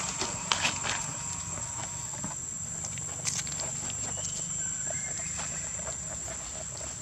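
Steady high-pitched insect drone, with a few sharp clicks and rustles about half a second in and again a little after three seconds, and faint short calls in the background.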